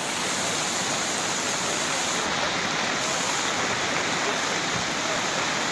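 Fast-flowing floodwater rushing and churning over the edge of a road, a steady, even rush of water.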